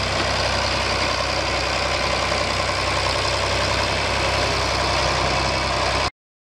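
John Deere 4020 tractor's six-cylinder engine idling steadily, then cutting off abruptly near the end.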